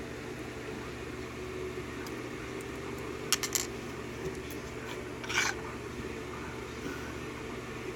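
A quick cluster of small metallic clicks, then a short metallic rattle about two seconds later, from an EVVA euro cylinder lock and its small parts and tools being handled as the lock is taken apart.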